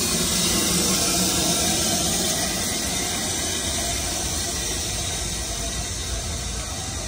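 BR Standard Class 7 'Britannia' steam locomotive No. 70000 and its train running past close by, a steady loud hiss over a low rumble that slowly fades as the tender and coaches go by.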